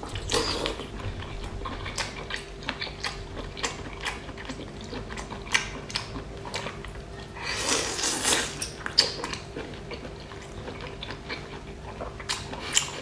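Close-up eating sounds: biting and chewing a skewer of scored, mala-spiced abalone, with many short wet mouth clicks and smacks and a longer noisy stretch about eight seconds in, over a faint steady hum.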